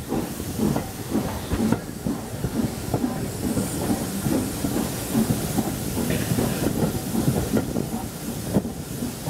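Steam-hauled train pulling away slowly behind an LMS Hughes Crab 2-6-0 steam locomotive, heard from a carriage: a hiss of steam over an irregular run of low knocks and rumble from the moving train.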